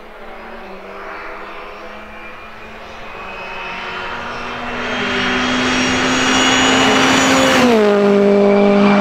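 Citroën C3 R5 rally car's 1.6-litre turbocharged four-cylinder engine holding steady high revs as the car approaches, growing louder. Near the end the pitch drops sharply as the car passes close by, and it holds the lower pitch as the car moves away.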